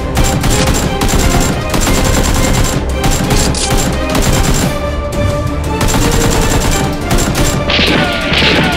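Rapid automatic gunfire sound effects over action background music. Near the end a series of falling whistle-like tones comes in.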